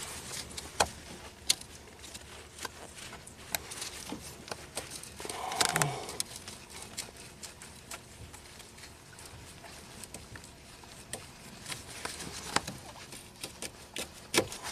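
Gloved hands working in a car's engine bay, unplugging the plastic wiring connector from the ABS module: scattered clicks and taps with rubbing and rustling, and a short louder noise about six seconds in.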